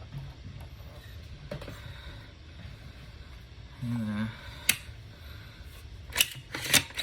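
Sharp metallic clicks and snaps of AR-15 parts being handled and fitted together: one click about two-thirds of the way through, then a quick run of several clicks near the end.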